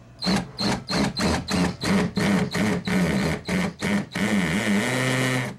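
Power drill run in about a dozen short trigger pulses, about two or three a second, with the motor's whine sagging under load, then held for a longer run of about a second and a half before stopping abruptly: driving screws to mount the bag-in-the-box pump to the wall.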